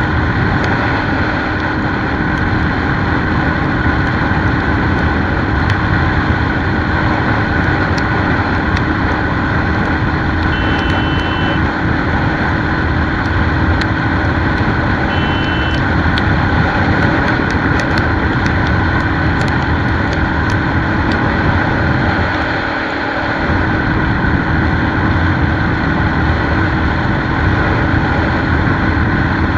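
Royal Enfield Thunderbird single-cylinder engine running hard at high speed under loud, steady wind and road noise, easing off briefly about two-thirds of the way through. Twice, a short high beep cuts through.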